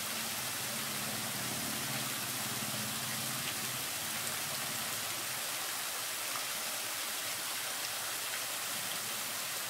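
Water spilling off the rims of a tiered mushroom-bowl fountain and pattering into the basin below: a steady, even splashing hiss, like rain.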